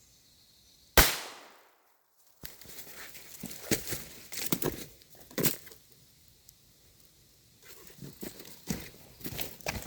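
A firecracker going off with one sharp bang about a second in, followed by irregular crackling and smaller pops.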